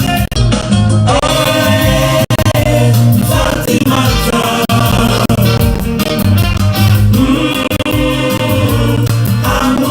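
Music: an upbeat song with a singing voice over a steady bass line and percussion.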